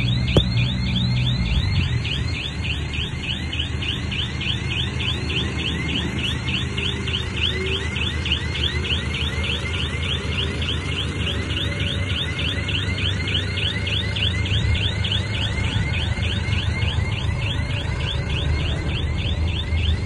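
A heavy machine's diesel engine runs steadily under a rapid electronic warning alarm that chirps without a break, about three short rising chirps a second.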